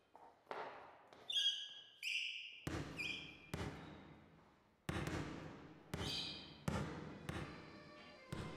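A basketball bouncing irregularly on a hardwood court in a large hall, each bounce echoing and dying away slowly, with several short, high sneaker squeaks.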